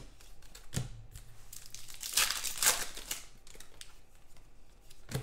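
Trading-card pack wrapper crinkling and tearing, loudest about two to three seconds in, with a few sharp clicks.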